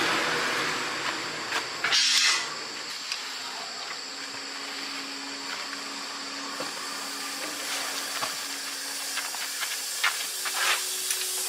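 Pressurised gas hissing: a loud rush at the start, a second short high hiss about two seconds in, then a quieter steady hiss over a low hum with scattered small ticks.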